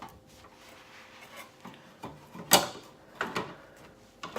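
A few knocks and clicks of handling as a washing machine's drain-filter access flap is closed up after the filter has been cleaned, with one sharp knock about two and a half seconds in and faint rubbing between.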